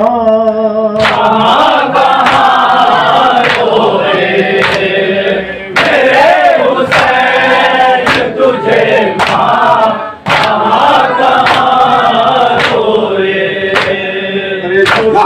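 A group of mourners chanting the refrain of a Muharram noha (Urdu lament) in chorus, unaccompanied by instruments. Steady sharp beats fall a little faster than once a second, the rhythmic chest-beating (matam) that keeps time with a noha.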